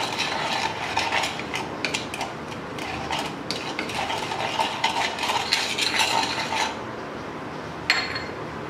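Plastic spoon stirring spice powders into oil in a plastic bowl: a run of light, irregular scrapes and clicks against the bowl that stops about two-thirds of the way through, with one more click near the end.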